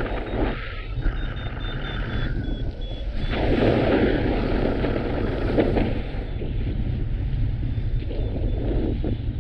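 Strong wind buffeting the microphone, a constant low rumble with gusts that swell and ease every second or two.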